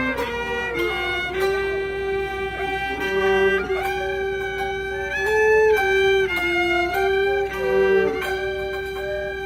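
Gaohu, the high-pitched Cantonese two-string fiddle with an ebony body and snakeskin-covered soundbox, bowed in a slow melody: long held notes that step and slide between pitches.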